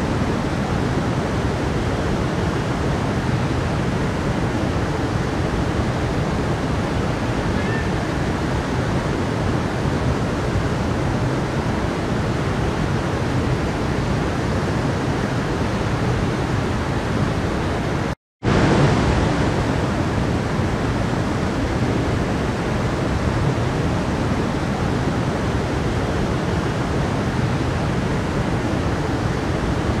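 Steady rushing of a mountain stream pouring over rocks, an even hiss of water. It cuts out completely for an instant about two-thirds of the way through.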